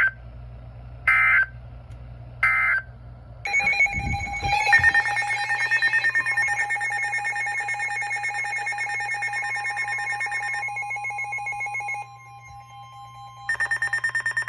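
Weather radio Emergency Alert System signalling: three short bursts of digital data tones, then a loud steady electronic alert tone with a buzzy pulsing edge that holds for about seven seconds and stops abruptly. Near the end comes a short run of rapid pulsing beeps.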